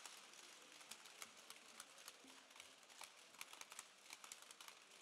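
Faint, irregular light clicks and ticks of trading cards being handled and flipped through as packs are opened, several a second.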